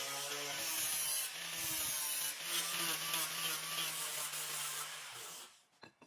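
Steady abrasive rubbing, like sanding or filing, with a low hum under it; it stops abruptly about five and a half seconds in.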